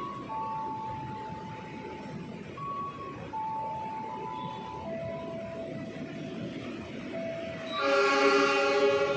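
A train horn sounding one blast of about a second near the end, over steady tones that step up and down in pitch before it.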